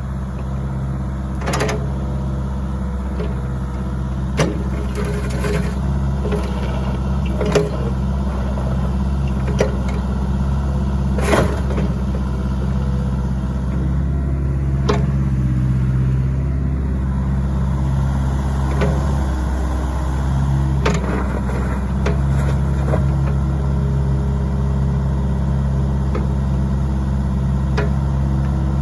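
Caterpillar mini excavator's diesel engine running steadily while the boom, bucket and blade are worked, with a dozen or so short, sharp clunks from the moving arm and bucket.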